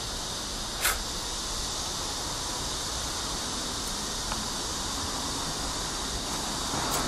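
A cigarette lighter clicks a few times, sharpest about a second in and again near the end, over a steady hiss of background noise.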